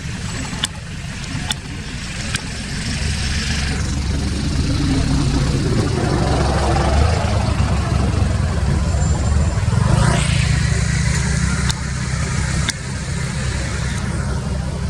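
A motor vehicle passing, its engine and tyre rumble swelling over several seconds and easing off, with a few sharp clicks early on.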